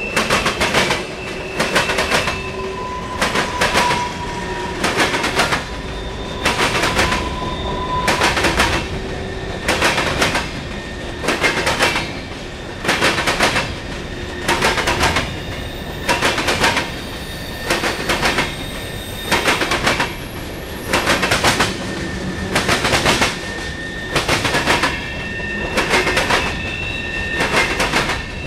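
CSX freight cars rolling past close by, their wheels clicking over the rail joints in a steady rhythmic clatter, a cluster of clicks about every second and a half. Faint thin wheel squeals come and go underneath.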